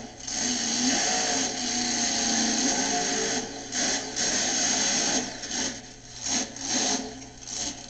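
Monster truck engine revving at full throttle as the truck races down the track and jumps a row of cars. The sound is steady for the first three seconds, then dips and surges again several times.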